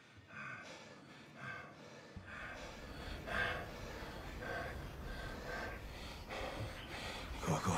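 A young man breathing hard in quick, gasping breaths, as if out of breath. A low background rumble comes in about two seconds in, and a louder gasp or voice sound comes near the end.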